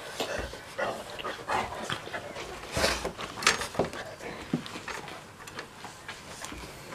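Six-and-a-half-week-old mastiff puppies giving short whimpers and grunts, with scuffling and mouthing noises as they squirm and nuzzle against an adult mastiff. The loudest scuffles come about three seconds in.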